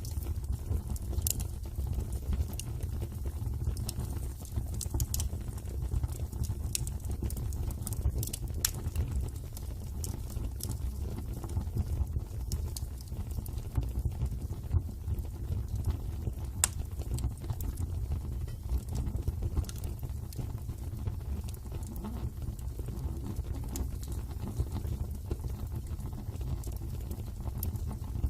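Wood fire burning in a fireplace, crackling with scattered sharp pops and snaps at irregular intervals over a steady low rumble.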